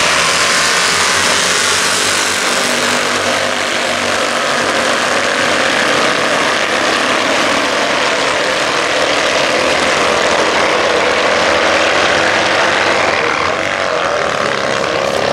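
A pack of Citroën 2CV cross race cars racing together on a dirt track, their air-cooled flat-twin engines blending into a loud, dense buzz that eases off slightly near the end as the cars draw away.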